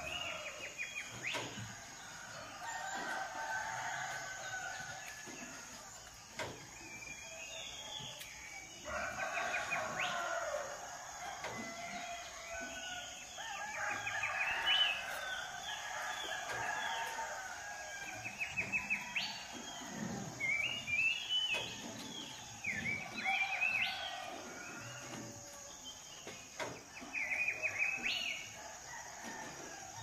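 Domestic roosters crowing several times with long calls, while small birds chirp in quick trills over them.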